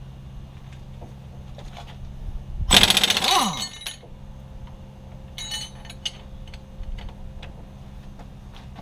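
Impact wrench hammering in one loud burst of about a second, about three seconds in, its motor winding down in a falling whine as it stops, working at the engine's seized bolts. A few shorter, quieter rattling bursts follow, over a steady low hum in the first few seconds.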